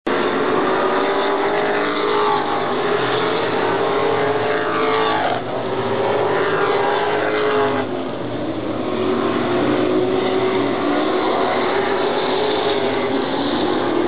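Several oval-track race cars' engines running hard at racing speed, their pitch rising and falling as cars pass, with short dips as the pack moves away.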